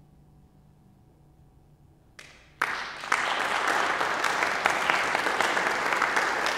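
Audience applause: after a quiet hush, a first clap about two seconds in is followed half a second later by the whole audience breaking into sustained clapping.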